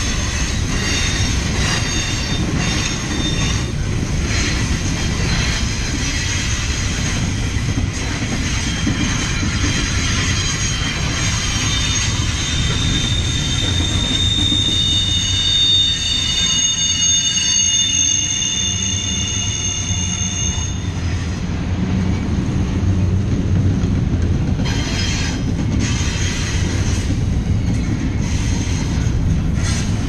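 Double-stack container well cars rolling past with a steady low rumble, their steel wheels squealing against the rail from wheel-on-rail friction. The high squeal of several tones is strongest through the middle and stops about two-thirds of the way through, with a few knocks near the end.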